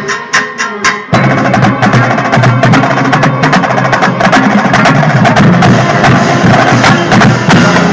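Marching band drumline of snare drums and bass drums playing a loud, fast cadence with sharp stick clicks. A few spaced hits open it, and the full line comes in densely about a second in.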